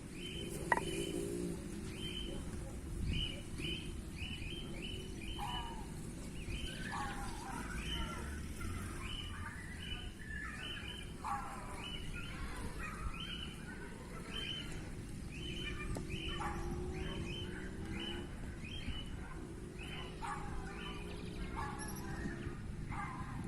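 Birds chirping: a steady series of short high chirps a few times a second, joined about six seconds in by quicker, lower falling calls, over a low outdoor rumble.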